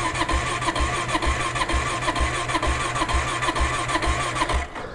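Kawasaki KLR 650's electric starter cranking its single-cylinder engine slowly, without it catching. A whining starter runs under a heavy pulse about twice a second, the sluggish cranking of a low battery after the bike has sat for a while. The cranking stops near the end.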